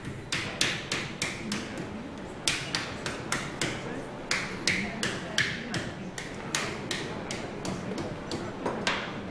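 A long wooden paddle slapping soft clay pieces laid on a wooden board, beating them flat. The sharp strikes come about three a second in short runs, with brief pauses between the runs.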